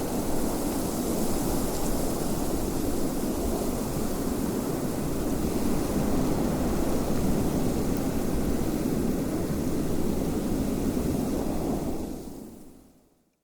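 Steady rushing wind noise, dense and low, that fades out to silence near the end.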